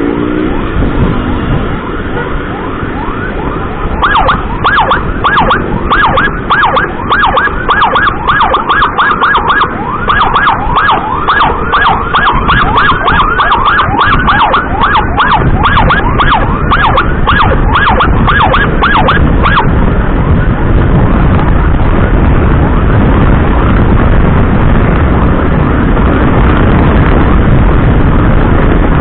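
Emergency siren in a fast yelp, rising and falling about three times a second, starting a few seconds in and cutting off about two-thirds of the way through. Steady motorcycle engine and wind noise runs beneath it and continues alone after it stops.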